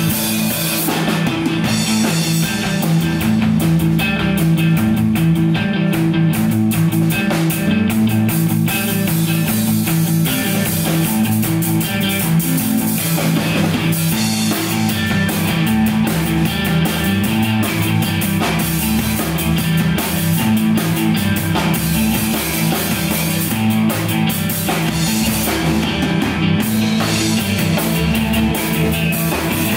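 Live rock band playing loudly and without a break: electric guitar and bass guitar over a drum kit.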